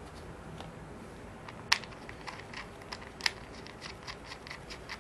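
Acrylic display stand pieces being handled and fitted together: a run of small plastic clicks and taps, with two sharper clicks about a second and a half apart.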